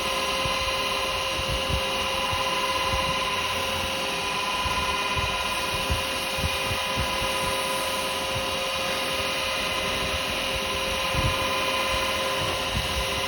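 Wood lathe running at a steady speed with a constant motor whine, while wax is rubbed onto the spinning yew workpiece.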